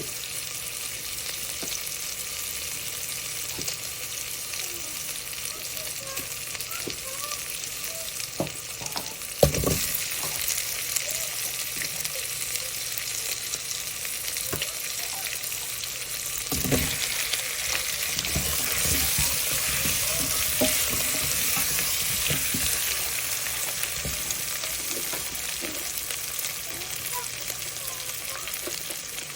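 Food sizzling and frying in a pan while being stirred for gochujang jjigae, with two sharp knocks; after the second knock, about halfway through, the sizzle gets louder.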